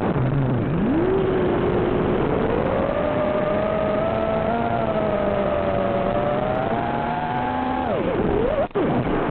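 An FPV racing quadcopter's four brushless motors (RCX 2400kv, on 4S with Ethix S5 props) whining under changing throttle. The pitch drops sharply as the throttle is chopped, then climbs and holds, falls away again near the end, and cuts out for a moment.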